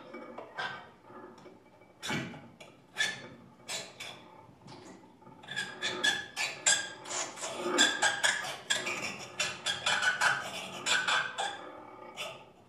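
Small objects on a tabletop rubbed, scraped and tapped by hand as an improvised instrument: irregular clicks and scratchy squeaks that build into a dense, rapid flurry in the middle and thin out near the end.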